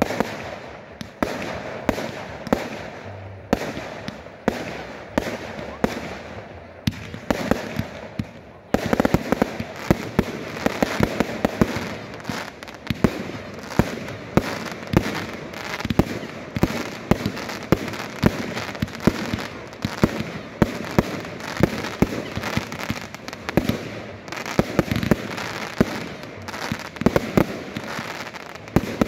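Fireworks display: a quick run of aerial shell bangs, which about nine seconds in thickens into a dense, continuous barrage of bursts.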